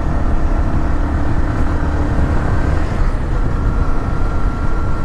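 Yamaha R15M's single-cylinder engine running steadily while riding, under heavy wind noise on the microphone. The engine's steady note shifts slightly about three seconds in.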